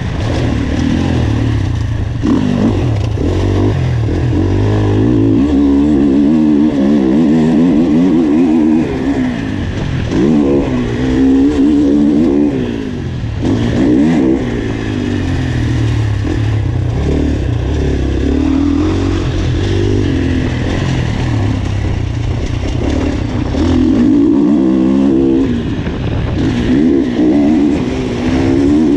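2021 GasGas MC 450F motocross bike's single-cylinder four-stroke engine under hard riding, its note rising and falling over and over as the rider opens and closes the throttle and shifts.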